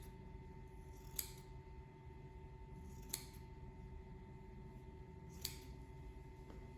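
Three short, light clicks about two seconds apart over a faint steady hum.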